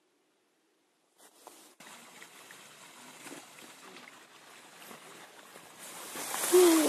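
Steady rush of a mountain stream, starting abruptly about a second in and growing louder toward the end. Near the end a short voice-like sound with bending pitch rises above it and is the loudest moment.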